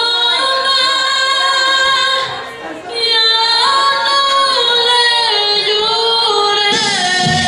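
A woman singing into a microphone, holding long notes with vibrato, with little or no accompaniment under her voice; a short pause comes about two and a half seconds in, and the backing music comes back in near the end.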